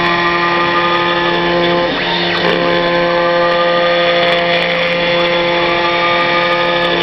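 CNC machine milling a plastic part: a steady motor whine made of several held tones. The tones change pitch a few times, about two seconds in and again near the end, as the machine's moves change.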